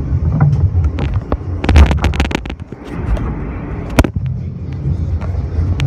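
R160A subway train running on elevated track with a low rumble. A quick run of sharp clicks comes about two seconds in, and a single sharp knock about four seconds in.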